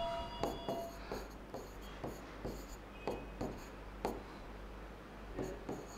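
Stylus writing on the glass of an interactive touchscreen display: a string of light, irregular taps and short scratches as figures are written out.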